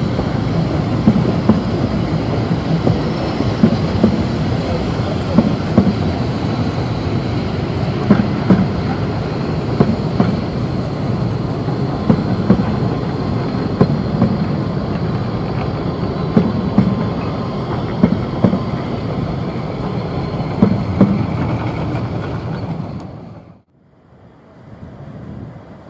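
Narrow-gauge passenger coaches rolling past on jointed track: a steady rumble with sharp wheel clicks over the rail joints every second or so. Near the end the sound drops away abruptly.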